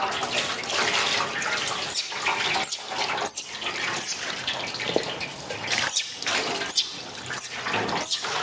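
Water poured from a scoop splashing over a baby macaque and into a metal basin, a continuous splashing and pattering. From about two seconds in come about eight short, very high-pitched squeaks, under a second apart.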